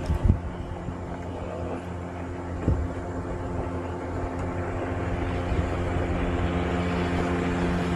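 Boat's outboard motor running at a steady pitch, growing louder over the last few seconds, with a couple of dull knocks in the first three seconds.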